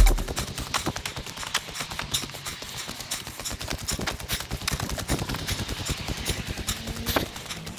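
Footsteps on a rocky trail: a dense, irregular run of crunching clicks and taps.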